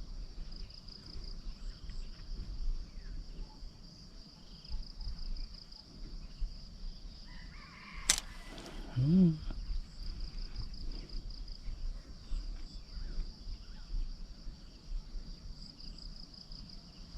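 Insects chirring steadily in a high, slightly pulsing drone, with a sharp click about eight seconds in and a brief pitched vocal sound just after it.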